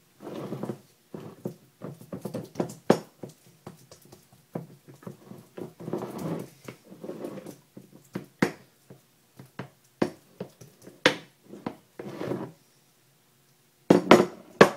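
A kitchen scraper spreading and pressing thick banana-nut paste into a small glass Pyrex dish: irregular soft scraping strokes, with sharp knocks of the scraper against the glass every second or so and a cluster of louder clinks near the end.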